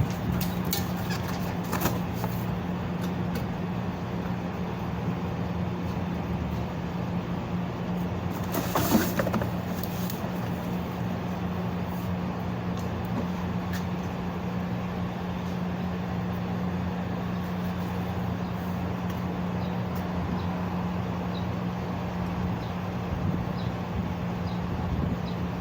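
A motor running with a steady low hum, with a short hissing burst about nine seconds in.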